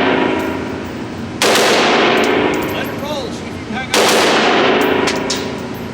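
Two single gunshots about two and a half seconds apart, each sudden and followed by a long fading echo.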